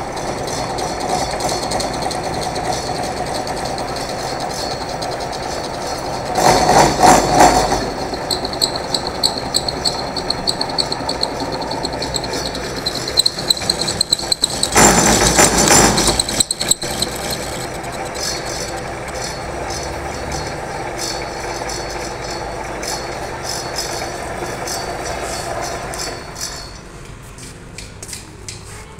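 Metal lathe running steadily while turning a metal shaft, with a faint high whine over the machine sound. Twice it grows louder and rougher for a second or two as the cutting tool bites into the shaft. Near the end the running sound drops away.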